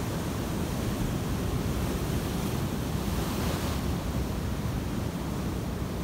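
Ocean surf breaking and washing in as white foam, a steady rush whose hiss swells a little past halfway, with wind rumbling on the phone's microphone.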